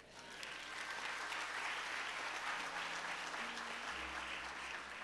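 Audience applauding, building up over the first second and then holding steady. From about halfway through, a few soft held notes from an instrument begin underneath.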